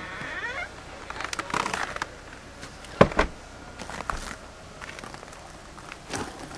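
Footsteps through deep snow: scattered soft crunching clicks, with one sharper, louder knock about three seconds in.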